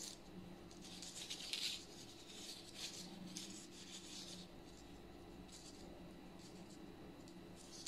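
Faint scraping and light clicking of metal knitting needles drawing yarn through stitches while purling by hand, in soft uneven bursts.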